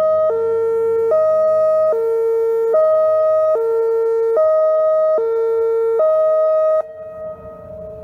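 Whelen OmniAlert OA4 electronic outdoor warning siren sounding a hi-lo tone, two pitches alternating about every 0.8 seconds. It cuts off suddenly about seven seconds in, leaving a faint trailing tone.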